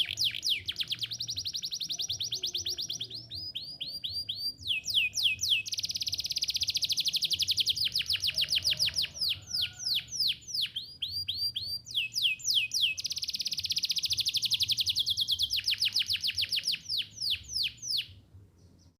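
Domestic canary singing: long rolling trills of fast repeated sweeping notes, broken into several phrases with slower runs of separate notes between them. The song breaks off near the end.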